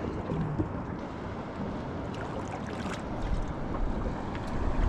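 Wind buffeting the microphone over the wash of the sea around a small boat, with a few faint clicks; the low wind rumble swells from about three seconds in.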